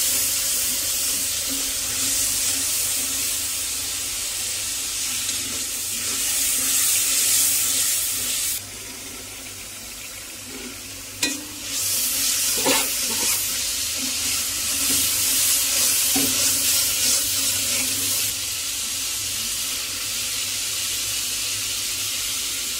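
Chili-and-turmeric spice mixture sizzling in hot oil in a steel karahi, stirred and scraped with a metal spatula. The sizzle drops away for about three seconds near the middle, then comes back with a few knocks of the spatula against the pan.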